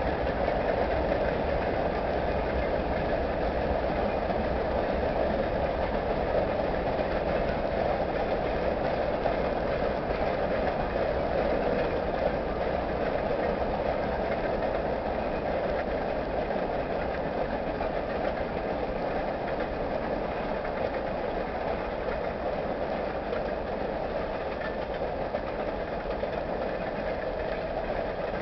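Freight cars of a Kansas City Southern manifest train rolling over a bridge: a steady noise of wheels on rail, easing slightly toward the end.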